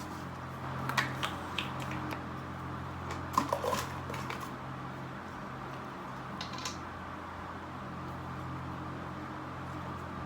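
A steady low hum runs throughout, with a few light clicks and knocks in small clusters about one second, three and a half seconds and six and a half seconds in.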